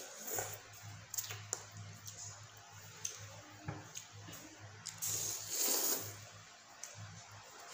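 Instant noodles being slurped and chewed, with a long loud slurp about five seconds in. A few light clicks of metal forks against the plates.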